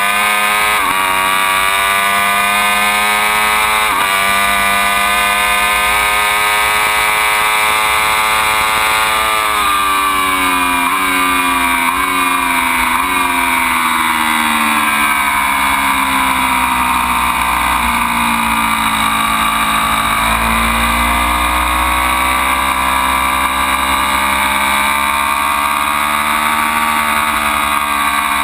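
Ducati Panigale V4's V4 engine at racing revs. Its pitch climbs with a couple of quick upshifts over the first several seconds, then falls steadily for about ten seconds through downshifts as the bike slows. It climbs again under acceleration in the last several seconds.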